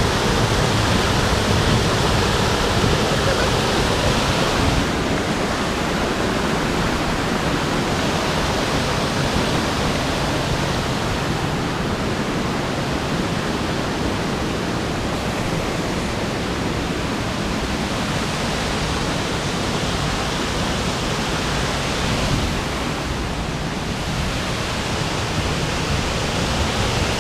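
Waterfall rushing, a steady close roar of falling water, slightly changing in tone around five seconds in and again near the end.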